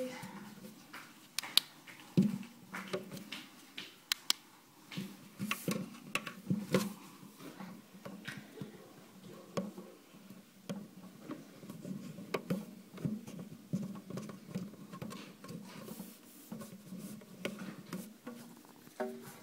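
Fingers pushing and rubbing at the rubber splash guard in the garbage disposal's sink flange, giving irregular light taps, clicks and rubbing noises.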